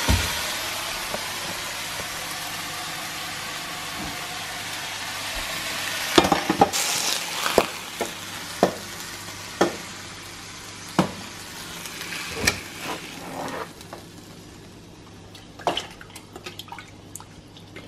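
Fatty pork sizzling as it fries in a pan, the hiss fading over the first few seconds, then a run of sharp clinks and knocks of a fork and cookware as the meat is moved from the pan into a pot of water.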